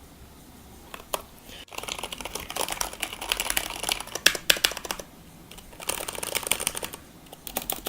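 Fast typing on a Qisan Magicforce 68 mechanical keyboard with Cherry MX Brown switches and PBT keycaps: two quick runs of key clacks, starting about a second in, with a short pause between them.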